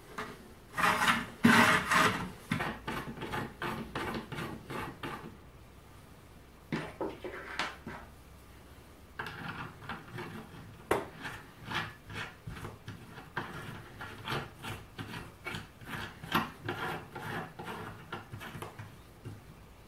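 Plywood jig parts being handled and rubbed together on a workbench, then a threaded steel bolt turned by hand through a hole in a plywood fence, its threads rasping against the wood in a quick run of short strokes.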